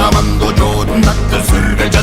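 Rock music with a steady low bass and a drum beat of about two strokes a second.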